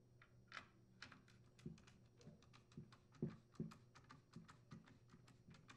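T25 Torx screwdriver driving a screw into a chainsaw's plastic handle: a run of light clicks, several a second, with a few dull knocks among them, starting about half a second in.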